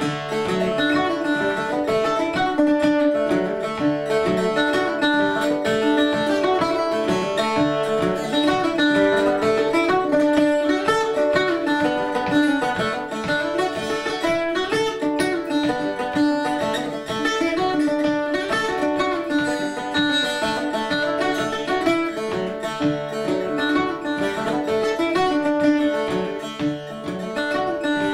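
Solo acoustic guitar-type plucked string instrument playing a set of Irish jigs: a quick picked melody over ringing strings in a steady, lively rhythm.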